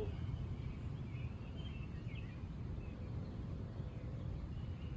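Steady low outdoor background noise with a few faint bird chirps about a second in.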